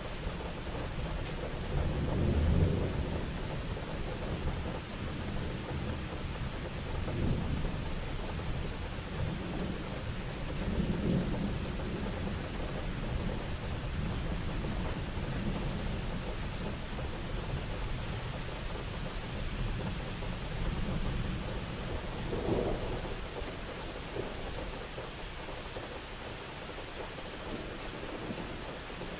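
Steady rain with thunder rumbling low several times, swelling and fading; the loudest rumble comes about two and a half seconds in and another near twenty-two seconds.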